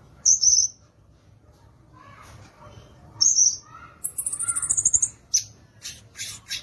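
Violaceous euphonia singing: short, high, loud notes near the start and again about three seconds in, then a fast, very high chatter about four seconds in, followed by a run of sharp clipped notes.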